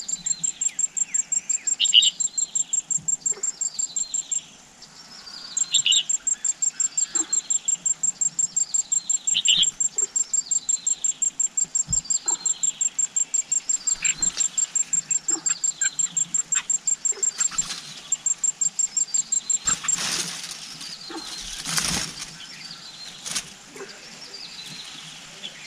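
An insect's high, even pulsed trill at about five pulses a second, pausing twice and stopping about twenty seconds in, over short falling bird calls repeated about once a second. Near the end come a few sudden bursts of wing flutter and leaf rustling as an adult red-whiskered bulbul lands at the nest.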